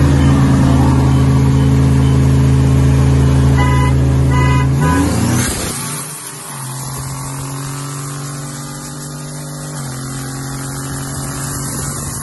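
Pickup truck engines running hard side by side in a street race: a loud, steady engine drone for about five seconds, which climbs briefly and then falls away to a quieter steady engine note. A few short high-pitched tones sound about four seconds in.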